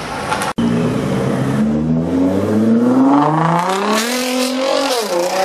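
A sports car's engine revs up hard under acceleration, its pitch climbing steadily, then dips briefly near the end at a gear change and starts climbing again. The sound cuts out for an instant about half a second in.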